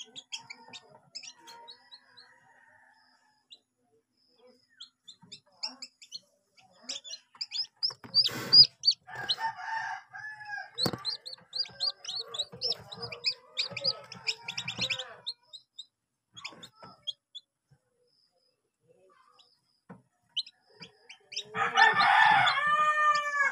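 Newly hatched chicks peeping with many short, high cheeps, with a couple of sharp knocks in the middle. Near the end a rooster crows loudly.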